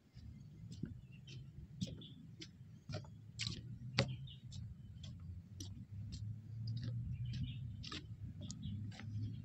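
Footsteps of someone walking at about two steps a second, short clicks and scuffs over a steady low rumble.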